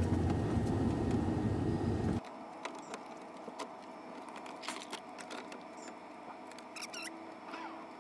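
A steady low rumble that cuts off abruptly about two seconds in, followed by scattered light clicks, rattles and small squeaks of a plastic van door trim panel being handled against the door.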